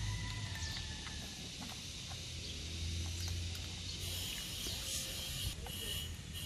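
Scattered light clicks and knocks of a plastic coolant jug being handled and unsealed, over a steady high hiss and a low background rumble.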